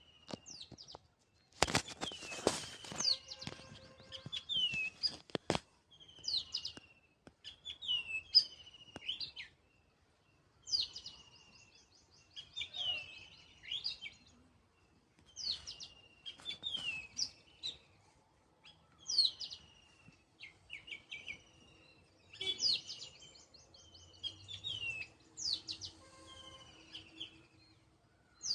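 A small songbird singing short repeated phrases of chirps, quick trills and falling whistles, a new phrase every two to three seconds. A burst of crackling clicks comes near the start.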